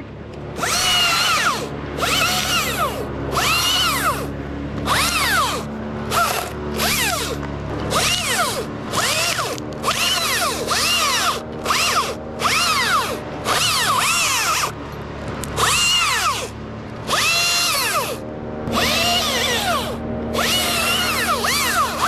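Small top-handle chainsaw revving in short bursts, roughly one a second, as it cuts through branches one after another. Each burst rises and falls in pitch, and the saw drops back to idle between cuts.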